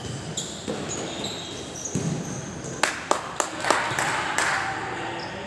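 Sports shoes squeaking in short high chirps on an indoor court floor, with a quick run of sharp ball impacts a little past halfway, followed by a brief burst of noise.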